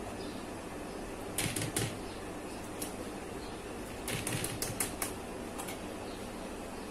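A spoon clicking and scraping against the side of a mixing bowl in two short flurries, about a second and a half in and again about four seconds in, over a steady low hum.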